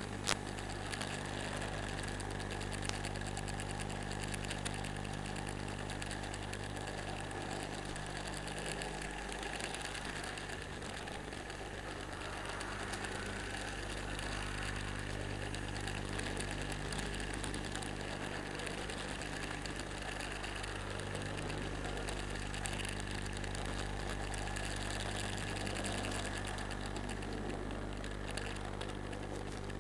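N scale model train running along the layout: a steady whirring hum of its small electric motor and wheels, with a few single clicks along the way.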